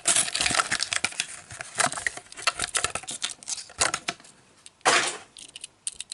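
Plastic blister and card packaging of a Hot Wheels die-cast car being crackled and torn open by hand: a dense run of crinkling and snapping, thinning out, then one louder tearing rip near the end.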